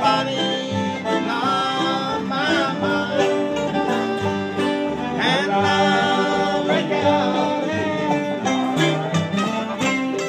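Live acoustic bluegrass jam: fiddle, acoustic guitars and banjo playing together, with a man singing over them.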